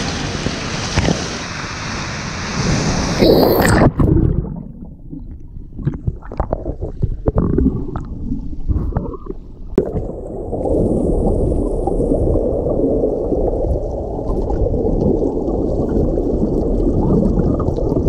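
Rushing water of a waterfall and stream. About four seconds in, the sound turns suddenly muffled and low, with irregular gurgling and splashing, then settles into a steady low rush.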